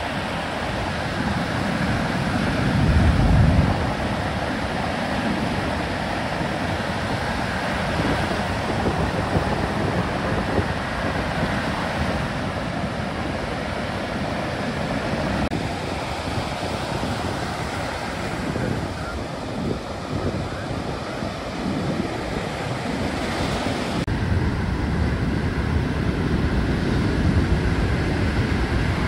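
Ocean surf breaking over a shallow reef, a steady wash of whitewater, with wind on the microphone. A louder low rush comes about three seconds in.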